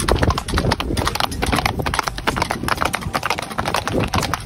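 Hooves of two or more ridden horses clip-clopping on an asphalt road, a quick, uneven clatter of many sharp strikes each second over a low rumble.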